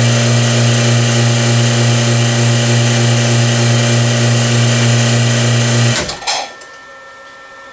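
Vacuum pump for a lathe's vacuum chuck running with a loud, steady hum, then switched off about six seconds in, followed by a brief knock.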